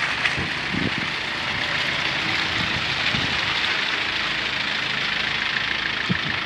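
UAZ-452 van's engine running steadily as the van crawls through deep mud.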